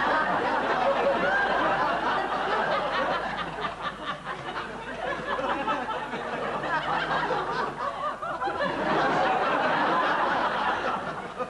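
Studio audience laughing continuously. The laughter eases a little in the middle and swells again near the end.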